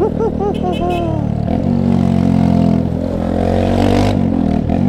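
Yamaha YS 250 Fazer's single-cylinder four-stroke engine running, heard from the rider's seat. It runs steadily, then rises in pitch as the bike accelerates from about three seconds in.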